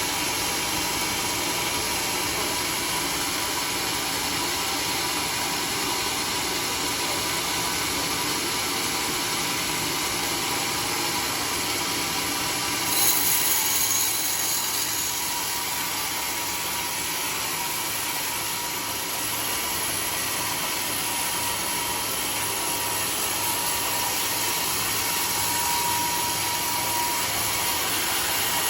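Sawmill saw machinery running steadily while sawing teak, with a brief sharper, hissier burst about 13 seconds in.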